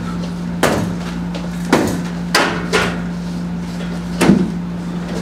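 Sharp knocks, about five at uneven intervals, the loudest about four seconds in, over a steady low hum.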